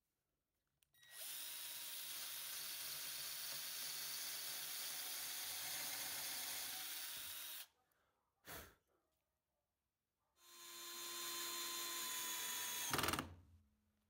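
Power drill boring a pilot hole in a pine board: a steady run of about six and a half seconds, then a single click. The drill then drives a wood screw for about three seconds, speeding up at the start and ending in a brief louder burst before it stops.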